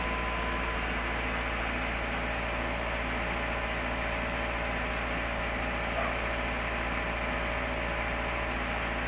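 Steady low engine drone, like a vehicle idling, with a faint steady whine on top.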